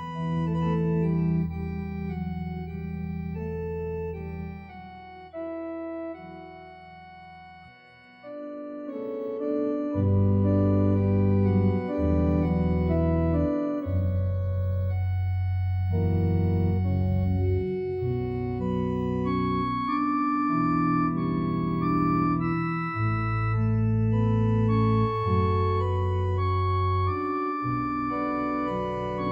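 Organ playing slow, sustained chords that change every second or two, with a softer passage about five to eight seconds in.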